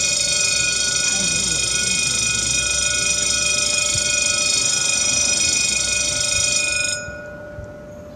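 Level-crossing warning bell ringing steadily while the barriers come down, the signal that a train is approaching. It cuts off suddenly about seven seconds in, as the barriers reach the horizontal.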